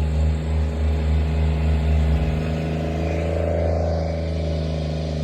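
Asphalt roller's engine running steadily while compacting a fresh blacktop top coat, its low hum shifting slightly about two seconds in.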